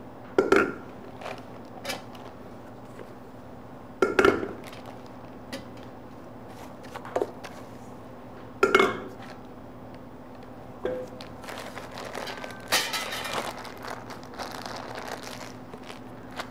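Metal kitchenware knocked and handled on a work surface: three loud, ringing clanks about four seconds apart, a few lighter knocks between them, then a stretch of lighter clattering and scraping near the end. A steady low hum runs underneath.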